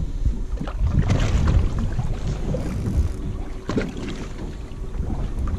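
Wind buffeting the microphone out on a fishing boat at sea, a steady low rumble, with a few short knocks on the boat now and then.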